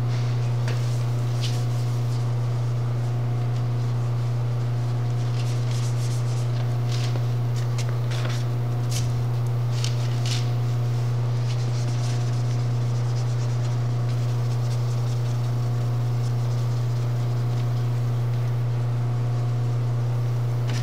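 Steady low machine hum with faint higher tones above it, and light rustles and crackles of masking paper and plastic sheeting being handled, clustered between about six and ten seconds in.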